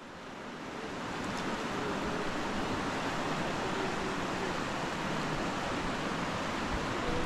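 Rushing river water, an even steady rush that fades in over the first second or two.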